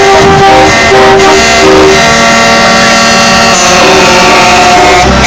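Truck horns honking in a passing parade: three short blasts, then long held blasts in several pitches at once, over truck engines running.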